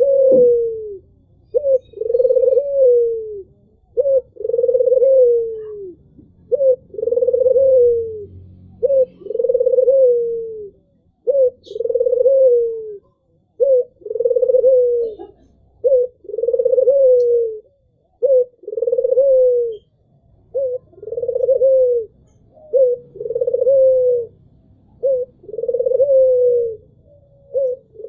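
White (albino) ringneck dove, the Indonesian puter, cooing over and over: each coo is a short note followed by a longer note that falls away, repeating about every second and a half.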